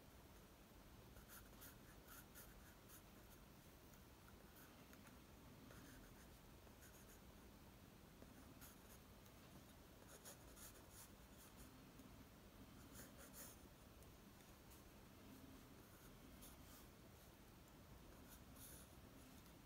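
Graphite pencil scratching faintly on drawing paper in clusters of short, quick strokes.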